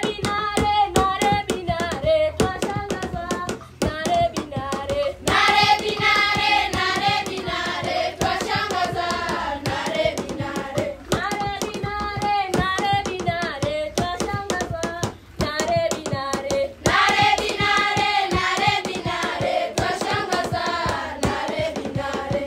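Background music: singing voices over a steady beat of hand claps.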